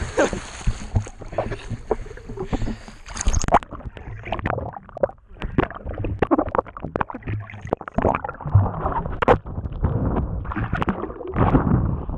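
Lake water splashing around a GoPro camera at the surface, then about three and a half seconds in the camera goes under and the sound turns muffled: underwater gurgling with irregular knocks and bumps against the camera housing.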